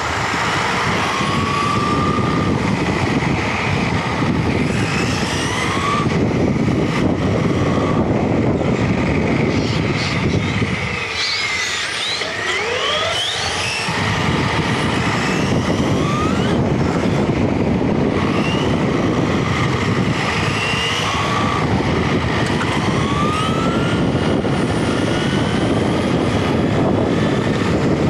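Onboard sound of an electric RC car at speed: steady tyre and road rumble with wind on the microphone, and a motor whine that rises and falls again and again with the throttle. The rumble eases for a few seconds about halfway through.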